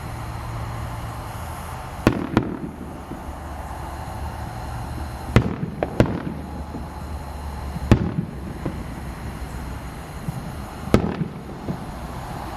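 Aerial fireworks bursting: about six sharp bangs a second or more apart, some followed by brief crackling, over a steady low background rumble.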